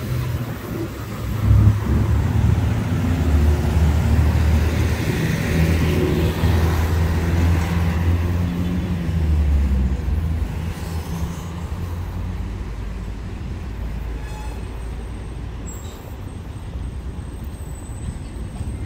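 Street traffic, with a vehicle engine's low hum close by through roughly the first half, then easing to a steady traffic noise.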